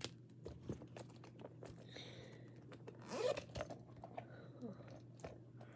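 Faint rustling and scattered small clicks of hands handling small objects, over a low steady hum, with a brief breathy sound about three seconds in.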